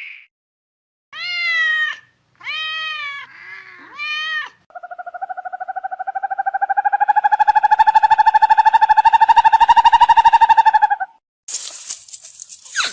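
Domestic cat meowing three times, then giving one long drawn-out call, about six seconds long, with a fast flutter through it. A different, noisier sound starts near the end.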